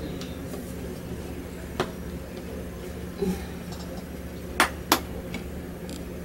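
Plastic DVD cases clicking as discs are handled and pried off their centre hubs: one sharp click about two seconds in, a soft knock, then two sharp clicks in quick succession near the five-second mark, over a steady low hum.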